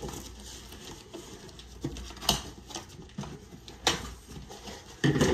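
A cardboard box being opened by hand: flaps and packing tape pulled and scraped, with rustling and a few sharp snaps of cardboard, the loudest near the end.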